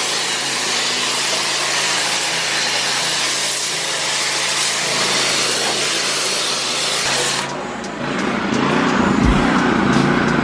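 Gas-engine pressure washer running with its water jet spraying. About seven and a half seconds in, the high hiss of the spray drops away while the low, heavier running sound grows louder.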